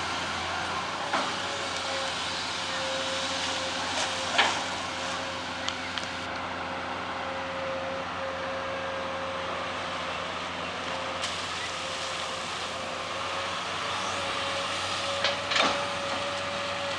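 Amphibious excavator's engine running steadily with a held steady tone. Several sharp metallic knocks come through: one about a second in, a pair around four seconds, and two more near the end.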